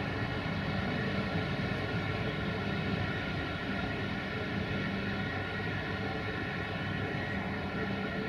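CFR 060-EA1 (LE5100kW) electric locomotive running slowly light engine while shunting: a steady electric hum and whine with a low rumble underneath, easing slightly as it draws away.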